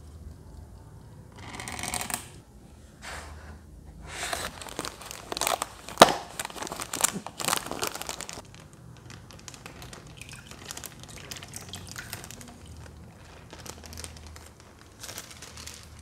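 Plastic fish bag crinkling and rustling as gloved hands work its tied, rubber-banded neck open. The rustles come in short runs and are loudest a few seconds in, with one sharp snap near the middle, then fainter crackling.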